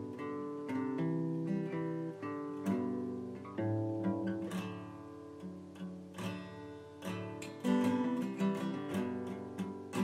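Instrumental outro music: an acoustic guitar playing a melody of separate plucked notes.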